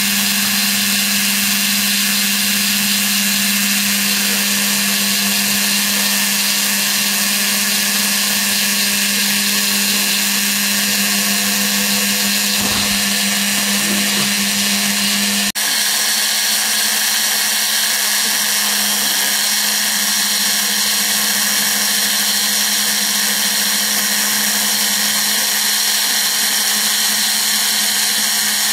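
Spindle motor of a homemade CNC router running steadily at high speed while its bit mills a bearing housing out of foam: an even, continuous machine whine. About halfway through the sound breaks off for an instant and resumes with a slightly changed tone.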